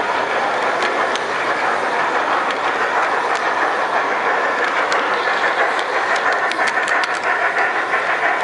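LGB large-scale model trains running close past on brass track, a steady rolling rumble with scattered sharp clicks from the wheels.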